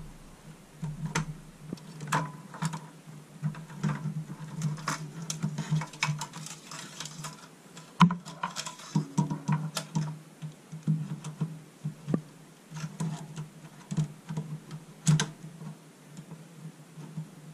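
Irregular light clicks, taps and small rattles of a case fan's cord and plastic parts being handled and pushed into place inside a computer case, over a low steady hum.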